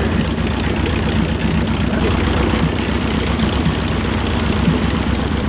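Steady low engine drone that holds an even pitch and level throughout, with no rise or fall.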